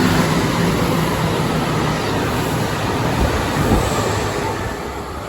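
Electric commuter train running along the platform, a loud steady rumble of wheels and running gear with a few low knocks from the wheels about three seconds in, slowly fading toward the end.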